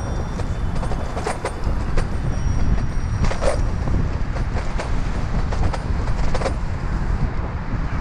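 Wind rushing over the microphone of a helmet-mounted action camera on a moving bicycle, over a steady low rumble of road traffic, with a few sharp clicks.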